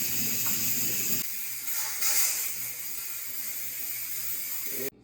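Steady hiss of steam escaping from a pressure canner, which cuts off abruptly near the end.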